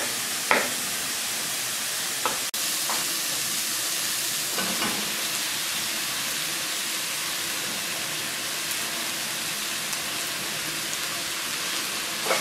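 Onions and sliced button mushrooms sizzling steadily in a frying pan, with a few light knocks early on the way; stirred with a spatula near the end.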